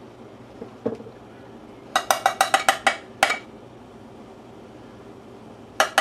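A metal measuring cup tapped against the rim of a stainless-steel saucepan to knock out what is left in it: a fast run of about eight ringing clinks, then another run starting near the end.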